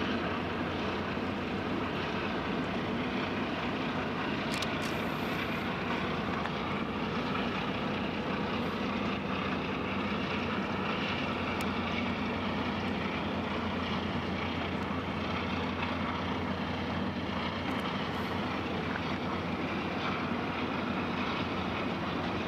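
Steady low drone of ship engines and machinery from a large car ferry and its escorting tugboats passing close by: an even hum under a wash of engine and water noise.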